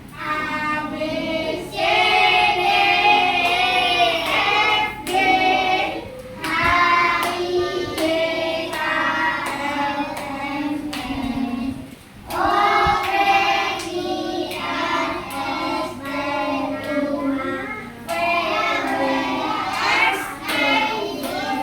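A group of children singing a song together, in phrases of held notes with short breaks about six and twelve seconds in.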